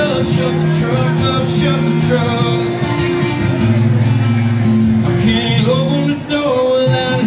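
Live acoustic country music: two acoustic guitars strummed together under a man's lead vocal, which holds one long note near the end.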